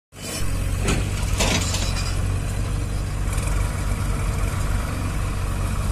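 New Holland 3600-2 tractor's diesel engine running steadily as it pulls a loaded trailer, with two brief clatters about a second in.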